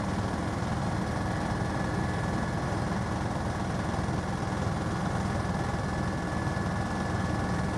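Helicopter in level cruise heard from inside the cabin: a steady drone of engine and rotor, with a thin high whine running over it.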